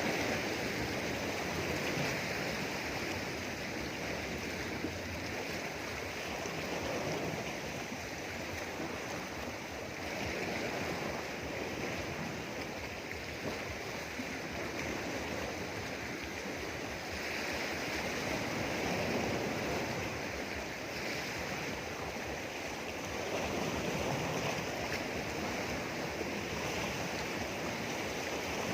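Sea waves washing over rocks: a continuous rush of surf that swells every several seconds.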